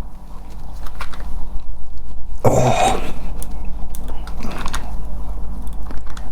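Screwdriver working at a small screw in a plastic housing, with small clicks and scrapes as the bit slips in a screw head that is rounding off. A louder short burst comes about two and a half seconds in.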